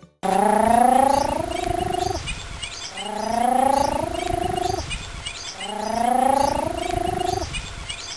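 Green toad calling: three long trills of about two seconds each, with short gaps between them, each rising slightly in pitch.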